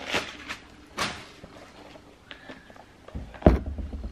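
Light rustles and clicks of a trainer being handled, with one sharp thump about three and a half seconds in.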